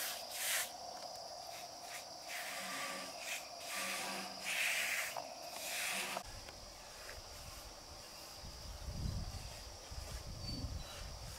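A steady high insect chorus, with scraping strokes of hand sanding on wood in the first half. About six seconds in, the strokes stop and a low rumble comes in.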